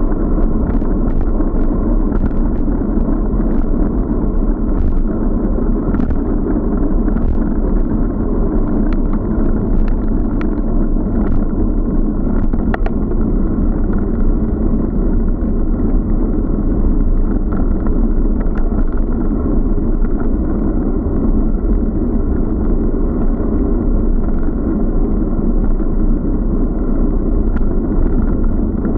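Wind and road rumble on a bike-mounted action camera's microphone while cycling: a steady, muffled rush with scattered small clicks and knocks from bumps in the road.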